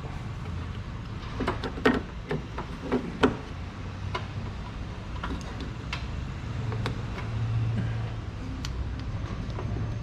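Clicks and knocks of a hand working inside a car door shell at the outside door handle's linkage, with a sharp cluster of knocks about two to three seconds in and lighter ticks later, over a steady low hum.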